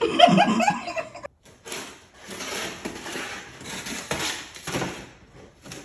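A person laughs loudly and briefly, then, after a short break, a cat rummages in a brown paper bag, the paper crackling in repeated bursts.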